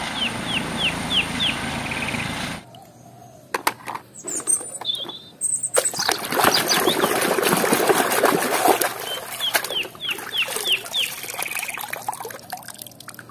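Hands sloshing and scrubbing a plastic toy truck in a tub of muddy water: irregular splashes and drips. A helicopter's steady rotor and engine noise runs at the start and cuts off suddenly, and a bird chirps a quick series of falling notes twice.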